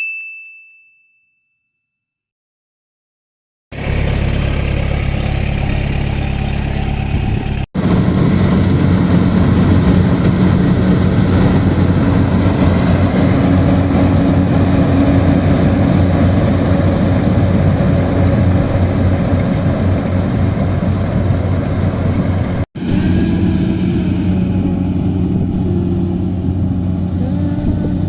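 A short chime-like ding fades out, then there is a few seconds of silence. After that a Yanmar AW70 combine harvester's diesel engine runs steadily and loudly, breaking off for an instant twice.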